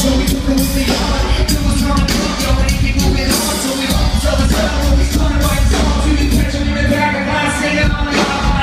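Live reggae-rock band playing loud through a concert hall's PA: heavy bass, a steady drum beat and a sung vocal.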